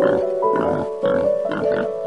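A pig grunting in short, quick grunts, about three a second, over background music with a simple melody.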